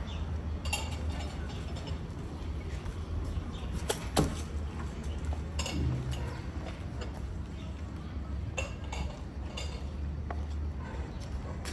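Outdoor street ambience: a steady low rumble with scattered sharp clinks and knocks, the loudest about four seconds in.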